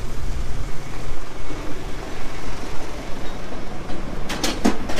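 Steady low rumble of vehicle engines and street traffic. A quick run of sharp knocks sounds about four and a half seconds in.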